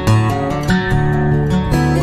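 Instrumental background music, with new notes starting every few tenths of a second.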